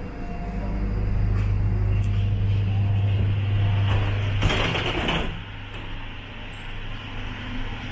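A vehicle running with a steady low hum, broken about four and a half seconds in by a hiss of air lasting about a second, after which the hum drops away to a quieter rumble.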